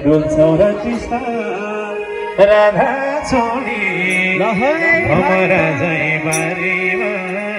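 Live bhajan: a man singing into a microphone over an electronic keyboard that holds sustained chords and a low drone.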